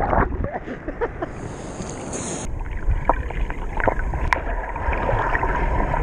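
Sea water splashing and gurgling around an action camera at the surface of the surf, with many small pops and bubbles. About two and a half seconds in the sound turns duller as the camera goes under water.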